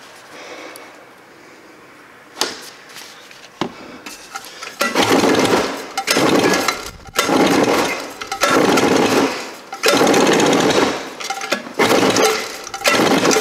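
Polaris Trail Boss 250 two-stroke engine firing in about five short rough bursts of a second or so each, starting about five seconds in, then dying after each one. It runs only on fuel squirted into the carburetor throat, because the carburetor's float valve is stuck and no fuel from the tank reaches it.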